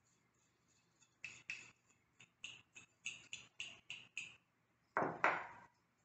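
A metal spoon tapping quickly against a small glass jar over a dough board, about a dozen light clinks. Near the end come two louder, duller sounds of hands folding the dough.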